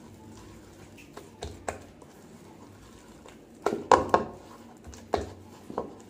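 A hand mixing thick rice-flour and gram-flour batter in a ceramic bowl. There are wet slaps and knocks against the bowl: a few light clicks early, then a burst of sharp, loud strokes a little past halfway and a few more near the end.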